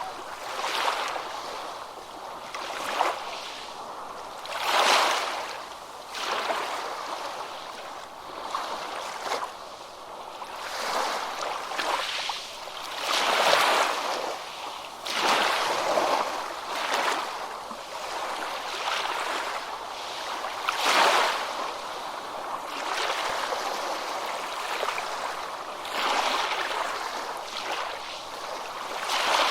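Ocean waves breaking and washing on a beach, one swell of surf after another every couple of seconds, with no pause between them.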